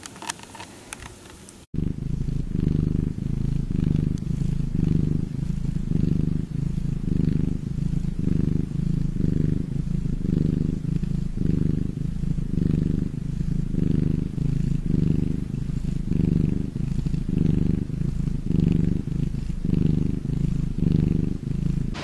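Domestic cat purring, loud and close, in an even rhythm that swells and fades a little more than once a second. It starts suddenly about two seconds in, after a brief faint stretch with a few small clicks.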